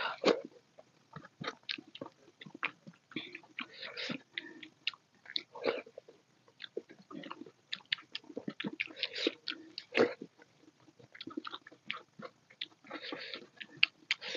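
Close-miked wet chewing and lip smacking of soft dal khichdi eaten by hand, with many short, irregular mouth clicks and smacks.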